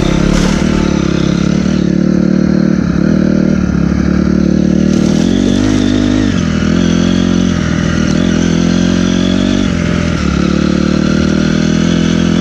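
Dirt bike engine running under way, its pitch rising and dropping several times with the throttle.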